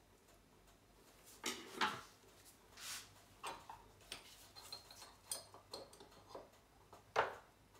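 Light kitchen handling: scattered taps, clicks and rustles as a glass mustard jar and utensils are picked up and handled on a worktop, with a couple of sharper knocks just under two seconds in and near the end.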